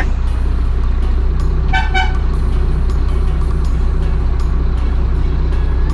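Truck engine idling steadily, with a short horn toot about two seconds in.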